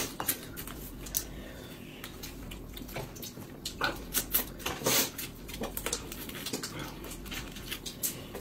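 Close-miked eating sounds: irregular chewing, lip-smacking and mouth noises in short bursts.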